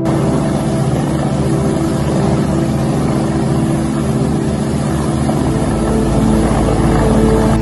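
Helicopter hovering close overhead, its rotor beating fast and steadily over a loud rushing engine noise.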